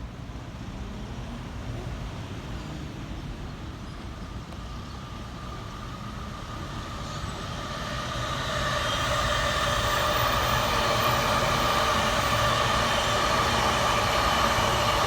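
An electric commuter train passing a level crossing. A low rumble grows louder over the first half, then holds as the steady running noise of the train goes by.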